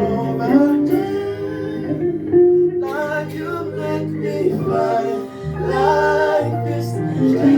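Gospel song: voices singing over instrumental backing with sustained bass notes.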